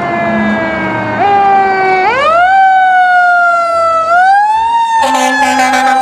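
Fire engine siren wailing, its pitch sliding up and falling slowly, then rising again about four seconds in. A second, steady tone joins it about five seconds in.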